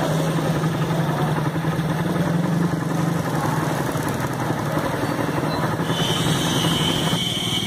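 An engine running steadily at a constant low pitch. A thin high tone joins it near the end.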